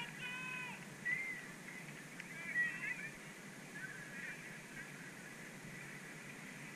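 A few short, distant pitched calls in the first three seconds and one faint call near four seconds in, over a steady open-air hiss.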